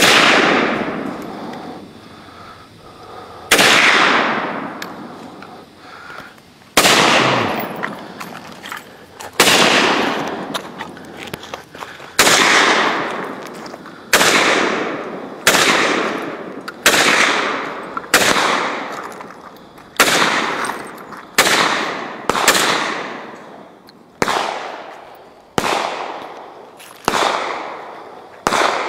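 AK-pattern rifle fired shot by shot, about twenty single rounds, each crack trailing off in a long echo. The shots come about three seconds apart at first, then speed up to roughly one a second.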